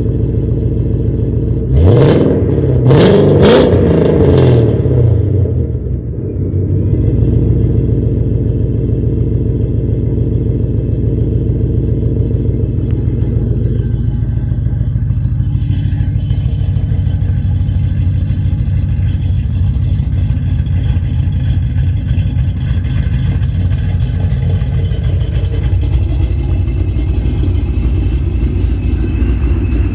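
Car engine idling, blipped through a quick burst of three or four sharp revs about two seconds in, then dropping back to a steady idle that settles a little lower about halfway through.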